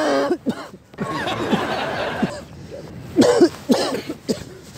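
A man coughing hard in repeated hoarse bouts, loudest at the start and again a little after three seconds in. The coughing is staged for a prank, not a real illness.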